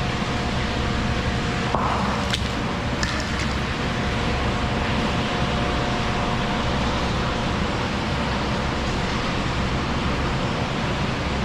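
Steady rush of shallow creek water flowing through a tunnel, with a few light clicks of stones or metal about two to three seconds in.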